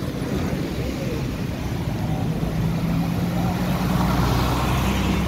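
Motor vehicle engine running, its low hum growing louder about two seconds in, over the general noise of a busy road.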